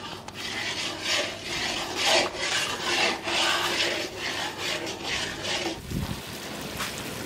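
Long-handled metal spatula scraping and stirring thick masala paste in an iron kadai, in repeated rasping strokes about twice a second. The scraping stops about six seconds in, followed by a single low thump.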